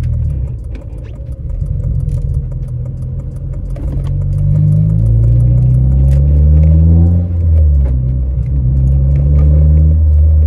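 Honda Civic Si's four-cylinder engine running under load and changing speed, rising in pitch as it accelerates, with a brief dip about seven seconds in, then running fairly steady.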